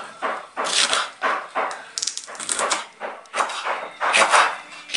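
Kitchen knife slicing crisp green chilies on a wooden cutting board: about ten irregular crunching cuts, each ending in a tap of the blade on the board, with a quick flurry a little after two seconds.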